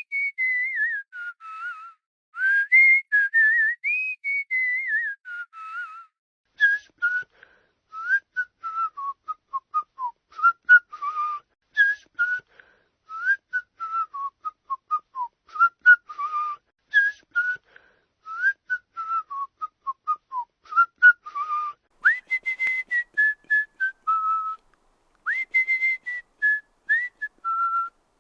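A person whistling with the lips, one clear tone at a time: first gliding, warbling phrases, then a long run of short falling notes at about two a second with breath audible around them, then a few longer held notes stepping down in pitch.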